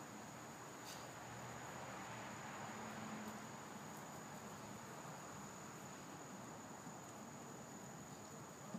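Quiet outdoor background with a steady high-pitched insect trill and a faint low hum.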